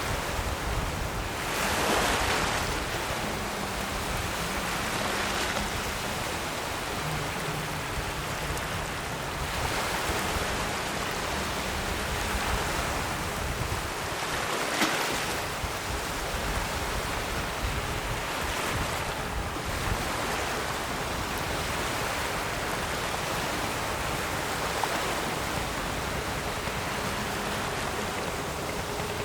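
Ocean surf: a continuous wash of waves with a breaker swelling in every few seconds.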